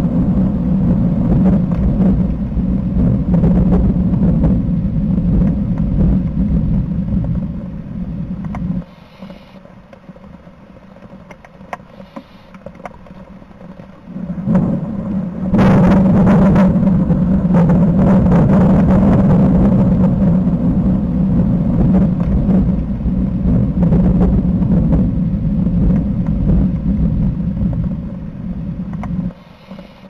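Thunder: a long rolling rumble that dies away about nine seconds in, then a sharp crack a little past the middle that runs into a second long, deep roll lasting almost to the end.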